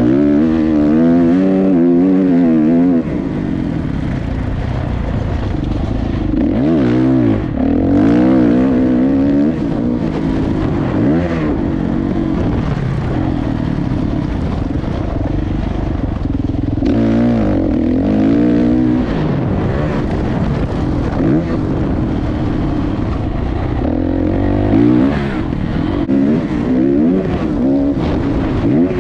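Motocross dirt bike engine revving, its pitch rising and falling over and over as the throttle is worked, with a steady low rumble underneath.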